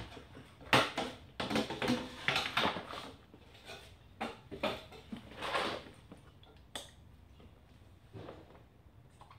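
Handling noise as a backpack leaf blower is lifted off a folding metal stand and set on the floor, and the stand is moved aside: irregular clattering and knocks, loudest about a second in. The noise dies down to a few faint knocks over the last few seconds. The engine is not running yet.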